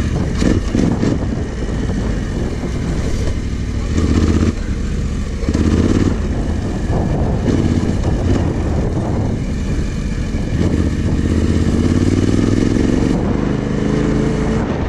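Yamaha Ténéré 700's parallel-twin engine, fitted with an aftermarket exhaust, as the bike rides a dirt track. The revs rise and fall several times, with a longer climbing pull near the end. Heavy wind noise on the action-camera microphone runs under it.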